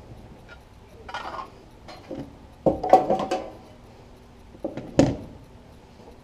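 Sheet-metal tool box parts and tools clanking as they are handled, a cluster of knocks near the middle and one more sharp knock later, the thin metal ringing briefly after the hits.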